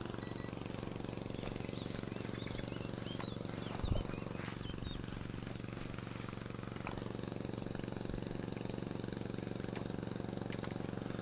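A steady low mechanical hum, with a few faint bird chirps and a single short thump about four seconds in.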